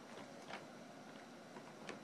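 Quiet room with a few faint clicks and smacks as a baby eats in a high chair.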